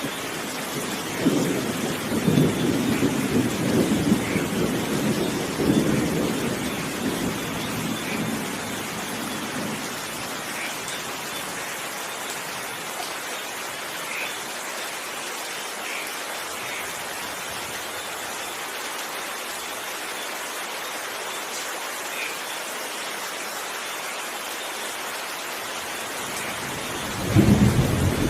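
Rain falling steadily, with thunder rumbling in about a second in and dying away over several seconds, then another rumble of thunder starting near the end.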